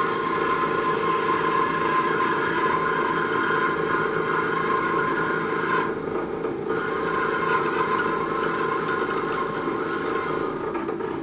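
A small power tool running steadily, its motor whine over the rasping of balsa wood being worked. The rasping briefly drops away about six seconds in.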